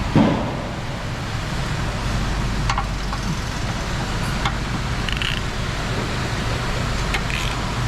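Hand tools working on a car's steering rack: a sharp knock right at the start, then a few scattered metallic clicks, over a steady low hum.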